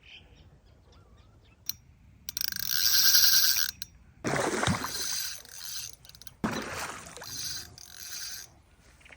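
Fishing reel buzzing for about a second and a half as line is pulled off, then two heavy splashes in the water, with a weaker buzz from the reel near the end.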